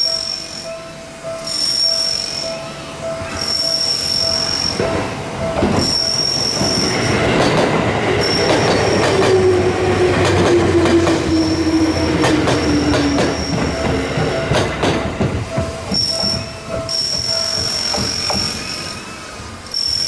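Japanese railroad crossing bell ringing in an even repeating pattern while a yellow Seibu commuter train passes. Its wheels clatter over the rail joints, and for a few seconds in the middle a whine slides slowly down in pitch. The train noise dies away about four seconds before the end, leaving the crossing bell ringing alone.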